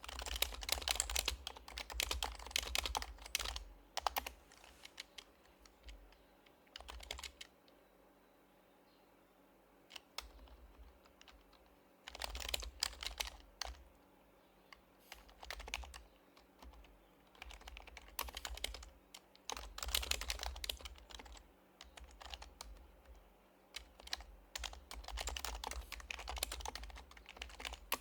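Typing on an HHKB Professional HYBRID Type-S keyboard with silenced Topre capacitive key switches. The keystrokes come in quick bursts, with a long pause broken only by a few stray strokes from about five to twelve seconds in.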